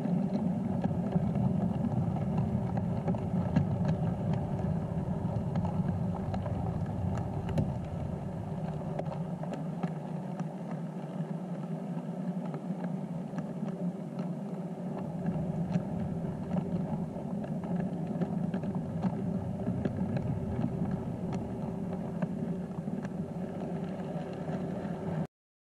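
Model freight train rolling past on the layout: a steady rumble of wheels and drive on the track, with light scattered clicks. It cuts off suddenly near the end.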